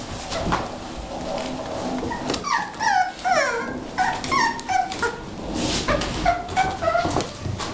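Six-week-old bulldog puppies whimpering: a quick string of short, high cries, each falling in pitch, starts about two seconds in, with another run near the end.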